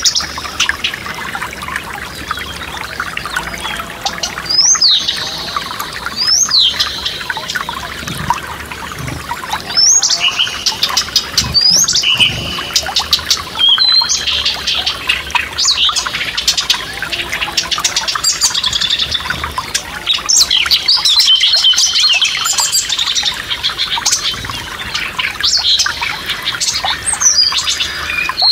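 Several songbirds chirping and singing, with repeated quick upward-swept notes, over the steady rush of a forest stream.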